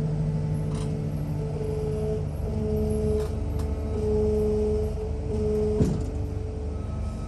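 Engine of a working machine running steadily, its pitch shifting slightly up and down, with a few sharp metal knocks, the loudest about six seconds in.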